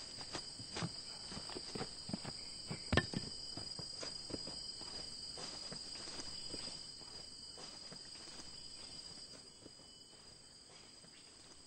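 Crickets chirring steadily in one high, even tone, with footsteps at about two a second that fade away as people walk off.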